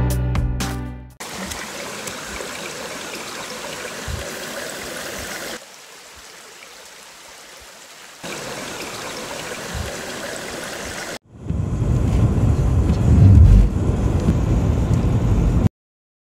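Guitar music ends about a second in, giving way to the steady rush of a 60-foot waterfall; the rush drops lower for a few seconds in the middle. Near the end, strong wind rumbles on the microphone and then cuts off suddenly.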